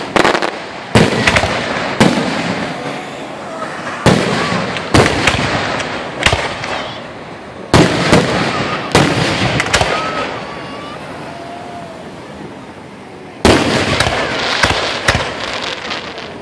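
Aerial fireworks shells bursting overhead: a string of sharp bangs about a second apart, each trailing off, then a lull partway through, and a rapid cluster of bangs near the end.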